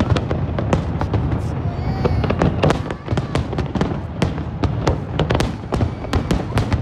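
Large fireworks display: aerial shells bursting in quick succession, many sharp bangs and crackles over a steady low rumble.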